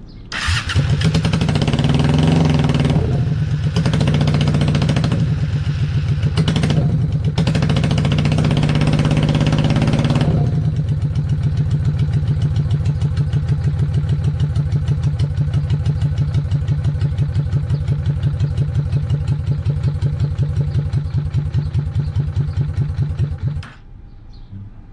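Honda VLX 600 V-twin motorcycle engine coming up about half a second in and revved several times over the first ten seconds, then settling into an even, pulsing idle before cutting off suddenly near the end. It is being run to check whether the charging system now charges the battery.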